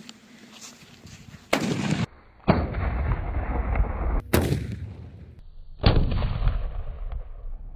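Homemade firecracker bomb going off: a series of loud bangs, sharp ones about two and a half, four and a half and six seconds in, each trailing off in a long rumble.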